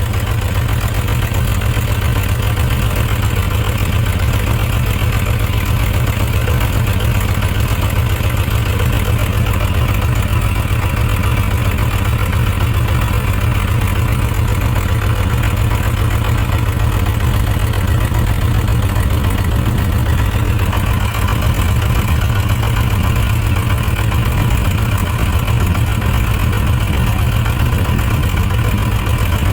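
Suzuki RF900's inline four-cylinder engine idling steadily while its carburettor is adjusted. One cylinder is misfiring, which the owner puts down to too much fuel or a fouled spark plug.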